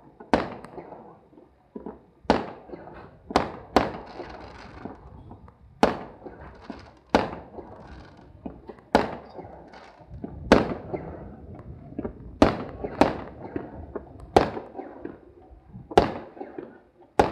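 Aerial fireworks shells bursting in a steady series, a sharp bang every second or so, about a dozen in all, each trailing off briefly.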